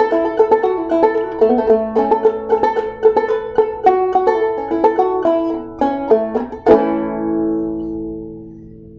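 Banjo picked in a quick run of notes, ending about seven seconds in with a last strummed chord that rings out and fades away.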